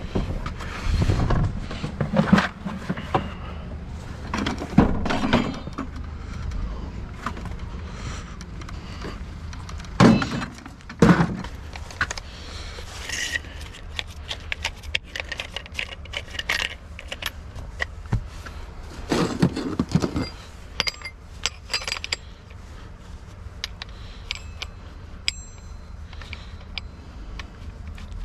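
Tools handled and shifted about: scattered knocks, clatters and light metallic clinks as an angle grinder is picked up and its disc is taken off. The loudest knocks come about ten and twenty seconds in; the grinder itself is not running.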